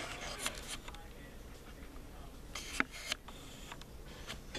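Handling noise from a hand-held camera being turned around: scattered soft rustles and clicks, with a sharper click about three seconds in, over faint room hum.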